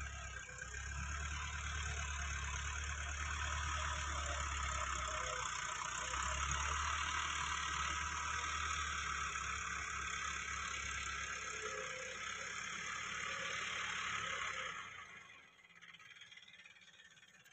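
Diesel farm tractor engine running steadily as the tractor drives past towing a disc implement, its sound falling away sharply about fifteen seconds in.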